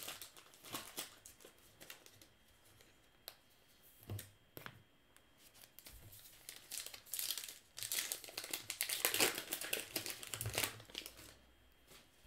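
A baseball card pack's wrapper being torn open and crinkled by hand. Light scattered rustles come first, then a dense stretch of crinkling about three seconds long in the second half.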